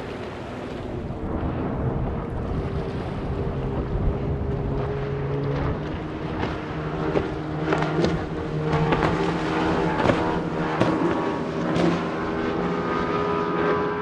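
Outboard motor on a small skiff running at speed, a steady engine hum under the rush of water and spray, with several sharp splashes in the second half as the hull hits the chop. Wind buffets the microphone.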